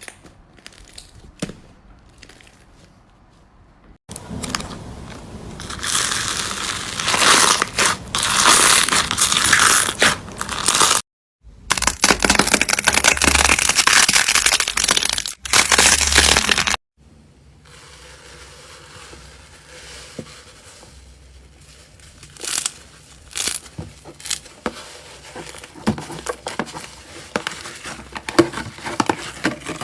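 Slime being pressed, squeezed and stretched by hand, crackling and crinkling with many small pops and clicks. The sound changes abruptly several times: faint sparse clicks at first, dense loud crackling from about four seconds in, a brief silence near eleven seconds, then quieter scattered pops from about seventeen seconds in.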